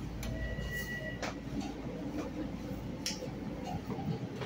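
Long Island Rail Road train running, heard from inside the passenger car: a steady low rumble with irregular clicks and knocks, and a brief thin steady tone near the start.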